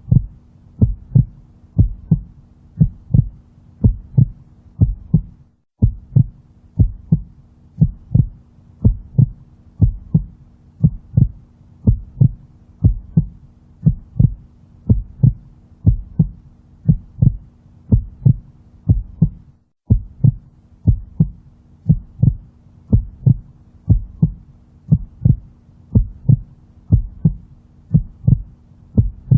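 Heartbeat sound: a slow, steady double thump repeating evenly, low-pitched, over a faint steady hum. It cuts out for a split second twice, about a fifth and two thirds of the way through.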